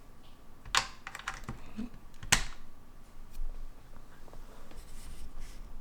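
Objects being handled on a tabletop: a few sharp clicks and knocks, the two loudest about a second and a half apart, with fainter ticks between.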